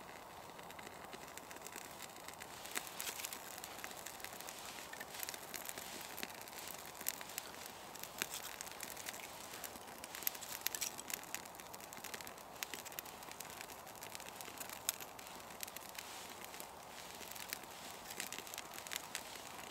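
Small fire of birch bark and fatwood shavings catching light under kindling, crackling faintly with scattered sharp pops from about three seconds in.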